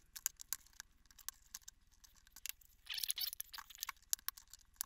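Small, sharp, irregular plastic clicks and ticks as fingers pry at the snap-in tabs of a WD Elements external hard drive's plastic enclosure, with a brief scrape about three seconds in. The clicking is the case's tabs beginning to come free.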